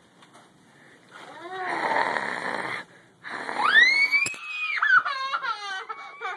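A loud, rough, raspy yell about a second in. After a short break it gives way to a young child's high scream, which rises sharply, holds, then breaks down into wavering sobbing cries.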